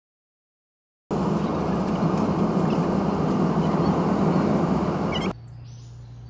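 Jet airliner rolling down the runway after landing, heard from inside the cabin: a loud, steady rush of engine and air noise with a low hum. It starts abruptly after a second of silence and cuts off sharply about five seconds in, leaving only a faint low hum.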